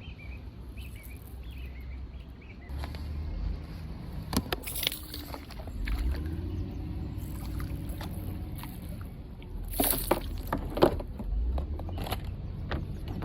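Knocks and small clatters of handling on a kayak, a few sharp ones around the middle and near the end, with water sloshing against the hull over a steady low rumble.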